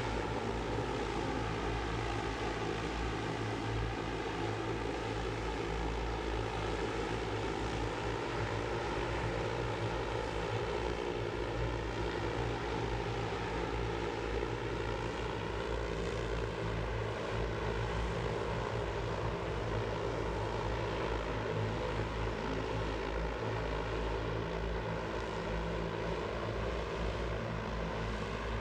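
Volocopter VoloDrone electric heavy-lift drone in flight: the steady hum of its many electric rotors, with the pitch of its tones drifting slightly up and down as it manoeuvres.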